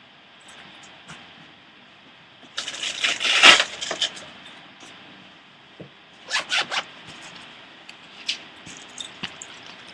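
Industrial-strength Velcro hook-and-loop tearing apart: one long rasping rip about three seconds in, then three quick short rips a few seconds later.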